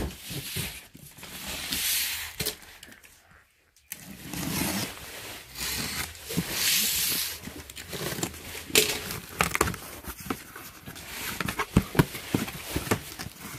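A cardboard box being opened: packing tape slit with a box cutter and pulled away in several hissing strokes, then the flaps folded back, with rustling and sharp knocks of cardboard.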